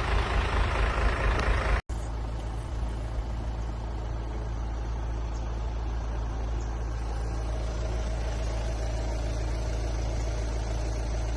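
A hissing, rushing noise for the first two seconds, then an abrupt cut to a steady low vehicle engine rumble that holds unchanged.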